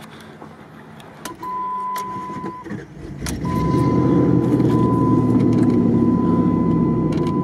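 A car engine is cranked and catches about three seconds in, then runs steadily, heard from inside the cabin. A high, steady electronic warning beep sounds from about a second in, broken by short gaps.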